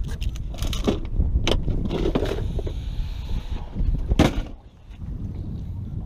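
Knocks and scrapes of people moving and handling things on a boat deck, over a steady low rumble of wind on the microphone. Several sharp knocks come in the first half, with the loudest about four seconds in.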